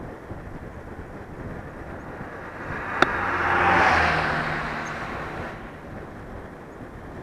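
A motor vehicle passes close by. Its noise swells to a peak a little after three seconds in and drops in pitch as it moves away, over steady wind noise. There is a single sharp click just as it starts to swell.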